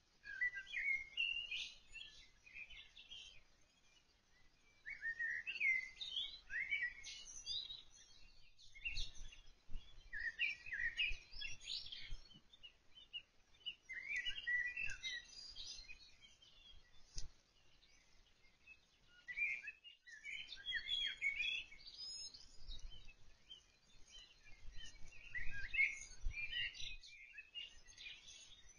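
A songbird singing: about six short warbling phrases of quick, high, jumping notes, each a couple of seconds long, with pauses of a second or two between them.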